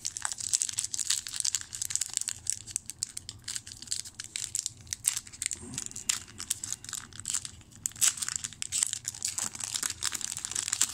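Wrapper of a 2003 Bowman football card pack crinkling and tearing as it is ripped open: a dense, continuous run of sharp crackles.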